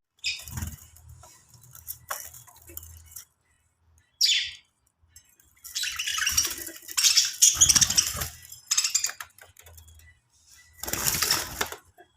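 Budgies fluttering their wings in several short bursts, the longest a few seconds long in the middle, with brief silences between.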